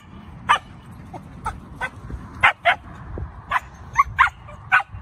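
Dogs barking and yipping: about ten short, high barks in an irregular run, as dogs meet through a fence.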